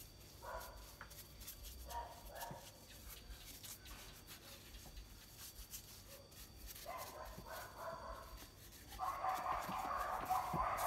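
A dog whining and whimpering in short high-pitched bouts, then in a louder, longer whine from about nine seconds in.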